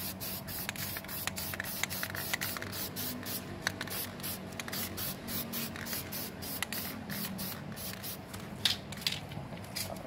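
Aerosol can of flat black spray paint hissing in rapid short bursts, about five a second, thinning out and growing irregular in the later part, as a final coat is sprayed onto a car door handle.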